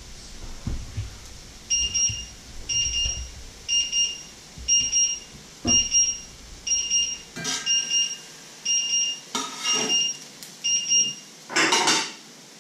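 Electronic alarm beeping in short, rapid pulse groups about once a second, ten times, then stopping. A couple of clatters come midway, and near the end there is a loud scraping rasp of a spatula working under a pancake in a frying pan.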